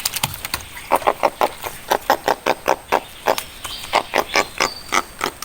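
An animal calling in a rapid series of short croaks, about four a second.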